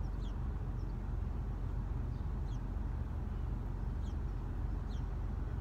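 Steady low hum of a car cabin, with faint short bird chirps about once a second.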